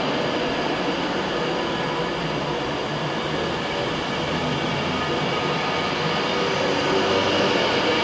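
Class 390 Pendolino electric train moving past along the platform: a steady, even running sound of the wheels on the rails and the train's running gear.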